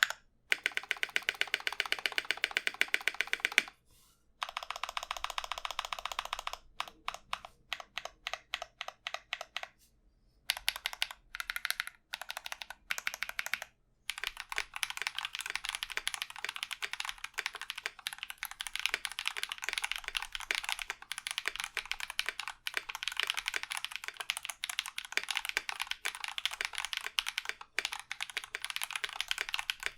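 Typing on a Key65 mechanical keyboard with lubed Holy Panda tactile switches and PBT keycaps. Runs of fast typing broken by short pauses and a few slower single keystrokes in the first half, then steady fast typing from about halfway.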